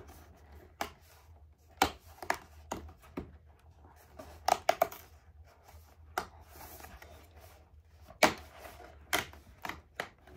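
Advent-calendar packaging being handled and opened by hand: irregular rustling, taps and sharp clicks. The loudest clicks come about two seconds in, around four and a half seconds in, and about eight seconds in.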